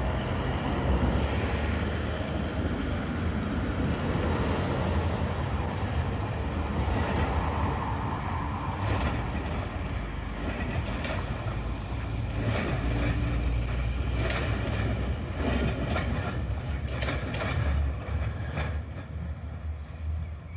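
NGTW6 "Leoliner" articulated tram running through the turning loop and pulling away, with a steady low rumble of its running gear on the rails. From about nine seconds in until near the end, a series of sharp clicks and clacks from the wheels on the track.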